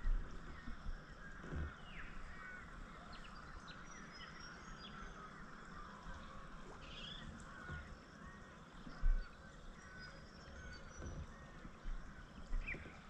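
Many birds calling and chirping over a steady outdoor hiss, with a few dull low thumps, the loudest about nine seconds in.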